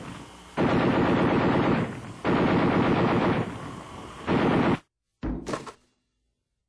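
Machine-gun fire sound effect: three bursts of rapid automatic shots, the first two over a second each and the last short, then a brief low thump and an abrupt cut to silence.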